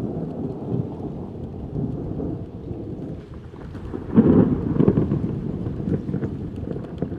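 Low rumble of thunder from an approaching thunderstorm, swelling loudest about four seconds in and then rolling on in smaller surges.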